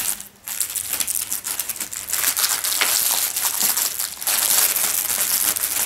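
Cellophane wrapper crinkling and crackling as it is pulled open by hand, a steady run of fine crackles starting about half a second in.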